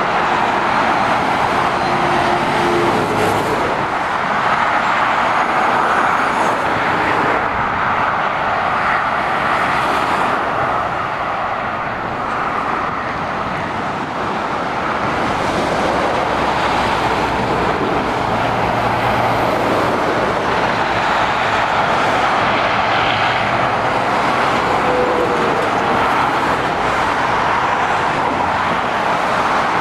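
Continuous motorway traffic passing below: tyre roar and engine noise from lorries and cars on a dual carriageway, rising and falling gently as vehicles go by.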